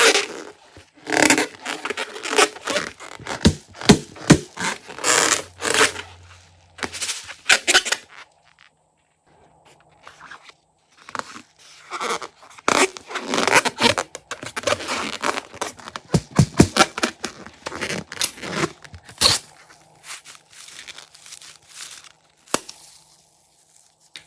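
Crunchy slime being squeezed and stretched by hand, giving bursts of dense crackling and tearing sounds, with a short pause about a third of the way in.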